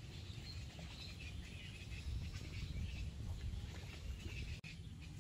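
Birds chirping in the background over a steady low rumble.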